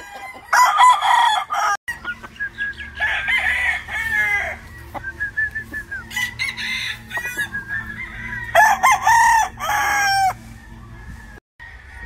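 Gamefowl roosters crowing again and again, several long crows, some overlapping, with shorter calls between them.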